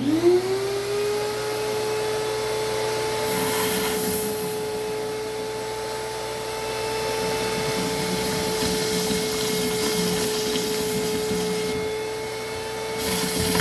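A small shop vac is switched on and its motor spins up within the first half second to a steady whine, drawing vacuum on the diesel's crankcase through the oil fill tube. Brief hissing comes in around three to four seconds and again near the end.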